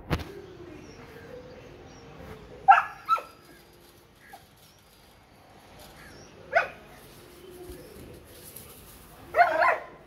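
Doberman puppy barking at goats and a cow, guarding: two quick barks about a third of the way in, a single bark past the middle, and a longer burst of barks near the end. A sharp knock sounds right at the start.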